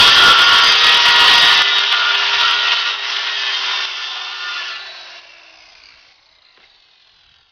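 Power saw cutting through 1/4-inch plywood. The cut finishes about a second and a half in, then the motor whine slowly winds down and fades out over the next few seconds.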